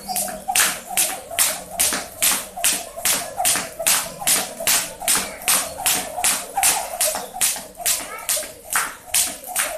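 Jump rope slapping a tiled floor in a steady fast rhythm, about three times a second, along with the light landings of the skipper's sneakers.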